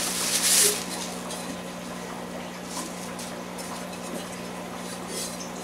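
Bubble wrap rustling and crinkling as a ceramic cichlid stone is unwrapped by hand, loudest in the first second, then quieter handling, over a steady low hum.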